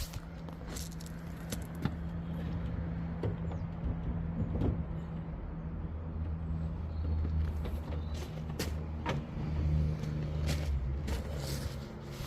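Scattered knocks and scrapes of wood as the hood of a longcase clock is lifted off its case, over a steady low rumble.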